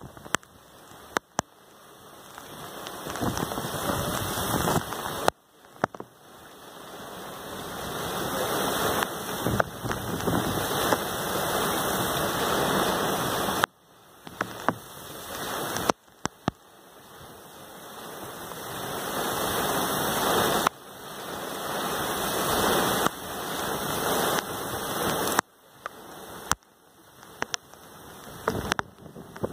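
Torrential rain and gusting wind from Hurricane Franklin, heard from inside a vehicle. The rush swells over several seconds and then drops off suddenly, again and again, with scattered sharp taps of drops striking the vehicle.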